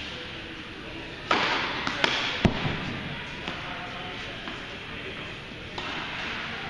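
Tennis ball being struck by rackets and bouncing on an indoor court: a few sharp pops bunched between about one and two and a half seconds in, the last one the loudest, echoing in the large hall.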